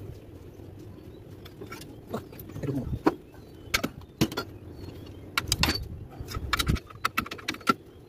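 Scattered metal clinks and knocks with some jangling, from hands-on work on a truck engine slung in chains; duller thumps come about three seconds in and again around six seconds.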